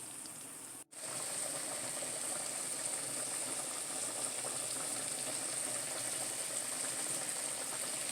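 Food cooking in a pan on the stove: a steady sizzling, bubbling hiss. It drops out for a moment about a second in, then carries on a little louder.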